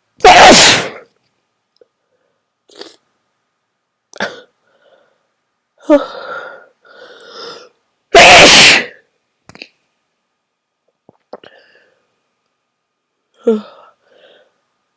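A person sneezing hard twice, once just after the start and again about eight seconds in, with sharp gasping breaths and a voiced, heaving build-up of breaths just before the second sneeze.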